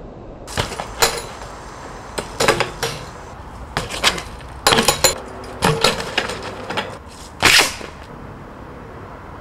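BMX bike handled and ridden on concrete: an irregular run of sharp knocks, clanks and rattles as the bike's tyres, frame and parts strike the ground, with one louder half-second rush of noise near the end.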